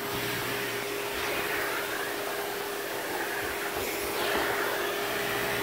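Vacuum cleaner running steadily: an even motor hum under a constant airy hiss.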